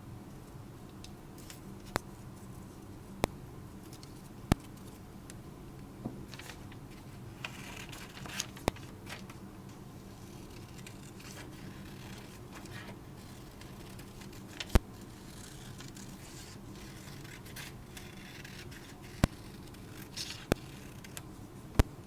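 Scissors cutting paper: irregular sharp snips a few seconds apart, with faint paper rustling in between.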